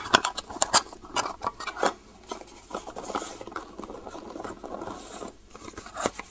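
Small cardboard boxes and packaging being handled: a quick run of clicks and taps in the first two seconds, then softer rustling, with a few more taps near the end.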